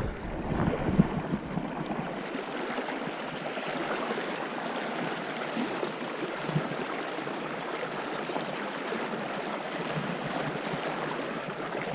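River water flowing steadily: an even rushing of current in a shallow channel.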